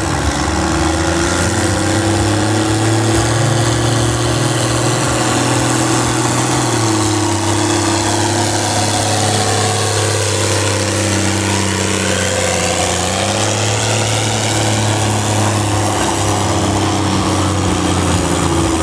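Turbocharged 6.6-litre diesel of a John Deere 4040 tractor running hard under full load while pulling a weight-transfer sled. The engine note sags in pitch for several seconds midway through and then climbs again near the end.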